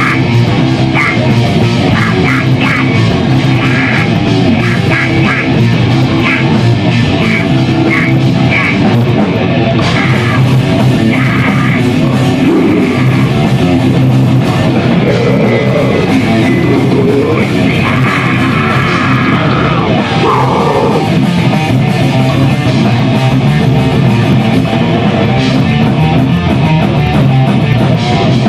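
Loud, steady rock music led by guitar.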